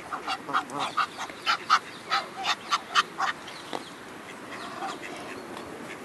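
A flock of geese, mostly Egyptian geese, honking: a quick run of short, harsh honks over the first three seconds or so, then only a few quieter calls.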